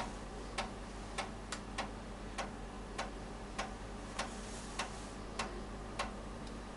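Faint, evenly spaced ticking, a little under two ticks a second, over a steady low hum.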